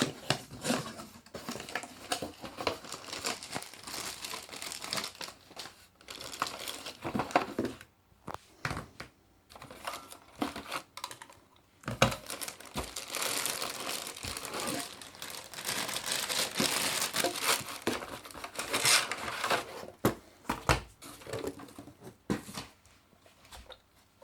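Irregular crinkling and rustling of something being handled, in uneven bursts with short pauses between.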